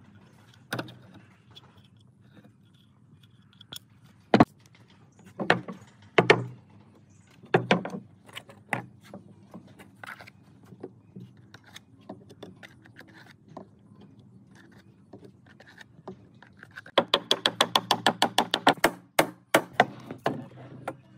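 Scattered sharp knocks and clatter of wooden workpieces being handled, then near the end a rapid run of about twenty clicks, some eight a second.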